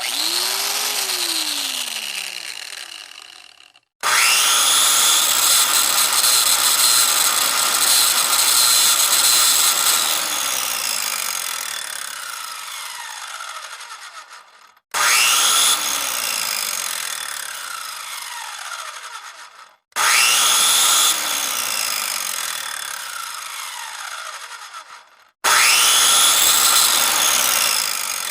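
A series of separate electric power-tool recordings, about five in a row, each cut off abruptly. In each the motor spins up, runs with a loud whirring, then winds down with its pitch falling as it coasts to a stop. The longest run is about eleven seconds.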